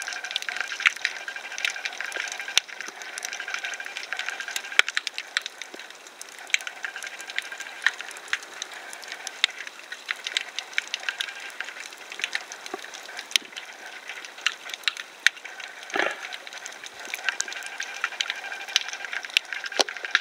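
Underwater coral-reef crackle: a dense, irregular patter of sharp clicks, typical of snapping shrimp, over a steady hiss of water. One short, deeper swoosh about sixteen seconds in.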